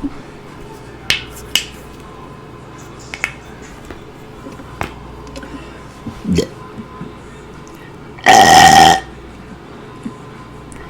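A woman's deliberate loud burp, lasting under a second, a little past the eight-second mark, preceded by a shorter low sound about two seconds earlier. A few sharp clicks come before, in the first five seconds.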